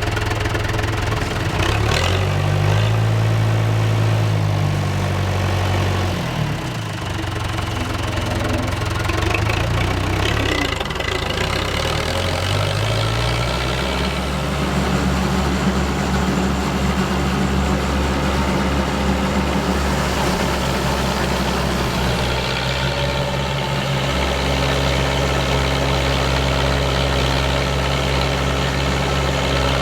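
John Deere 2130 tractor's diesel engine running while driving a Teagle Tomahawk straw chopper/blower. Its speed rises and falls a couple of times in the first half, dips briefly, then picks up about halfway through and runs steady under load.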